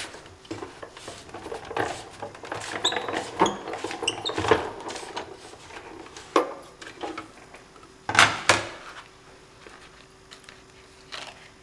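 Green Cuttlebug die-cutting machine being hand-cranked, its rollers pulling the plate sandwich with a thin cutting die through in a run of irregular clicks and creaks. This is followed by a few sharper plastic knocks, the loudest about eight seconds in.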